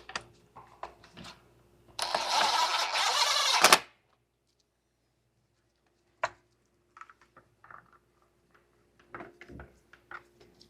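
A power tool runs a bolt in with one loud burst of just under two seconds about two seconds in, followed by a few light clicks and knocks of tools and parts being handled.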